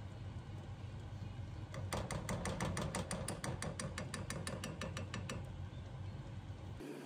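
A wooden spoon scraping and clicking against a plastic tub while scooping out thick red chili paste (gochujang), in a quick, even run of clicks, about eight a second, for a few seconds. A steady low hum runs underneath.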